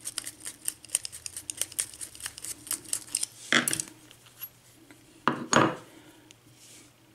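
Small metal tools clinking and rattling as they are handled on a bench, a quick run of light clicks followed by two louder metallic clanks.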